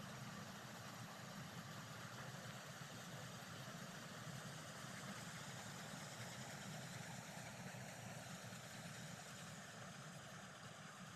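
A moving vehicle's faint, steady low rumble with hiss over it, easing off slightly near the end.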